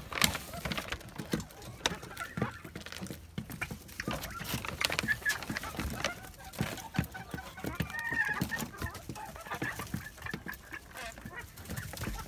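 Flock of young red golden pheasants giving short high peeps and chirps a few times, over many quick taps and rustles of pecking and scratching in wood shavings.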